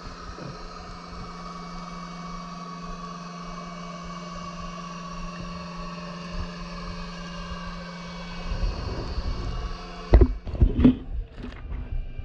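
Steady engine hum made of several even tones. About eight seconds in a low rumble joins it, and a few loud knocks follow near the end.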